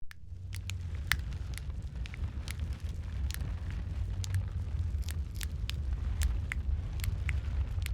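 Wood fire crackling in a fireplace: irregular sharp pops and snaps over a steady low rumble of the burning logs.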